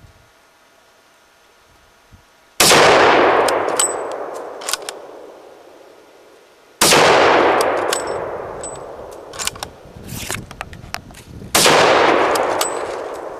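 Three shots from a .375 H&H Magnum rifle firing Hornady 300-grain solids, about four to five seconds apart, each a sharp loud bang that echoes away over several seconds. Short metallic clicks and a ring follow in the gaps between shots.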